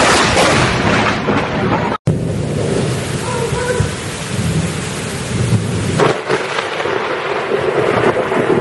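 A loud crash of thunder for the first two seconds, then, after an abrupt cut, heavy rain pouring with thunder rumbling under it, swelling again about six seconds in.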